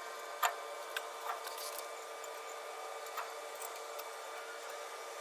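A few short, light clinks and taps as a steel drum-brake backing plate is handled and fitted over the rear axle housing flange, the sharpest about half a second in, over a faint steady hum.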